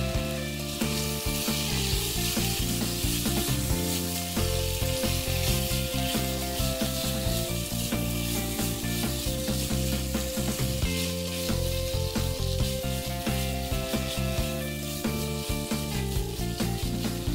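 Thinly sliced marinated beef sizzling as it sears in hot oil in a frying pan, with a spatula stirring and scraping through the meat. Soft background music plays underneath.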